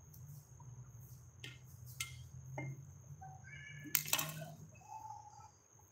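A few light knocks and clinks on a stone kitchen counter, the loudest about four seconds in as an onion is set down. A steady low hum and a faint steady high whine run underneath.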